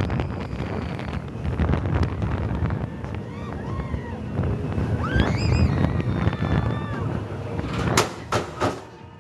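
Steel roller coaster train rumbling along its track, with wind buffeting the microphone and riders shouting and screaming about halfway through. Near the end, three sharp clunks.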